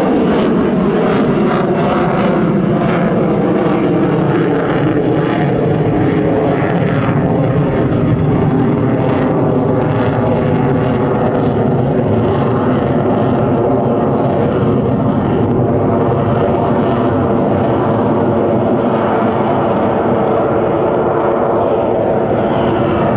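Lockheed Martin F-22 Raptor's twin Pratt & Whitney F119 turbofan engines, loud jet noise as the fighter flies its demo, the pitch falling over the first several seconds as it passes, then settling into a steady roar.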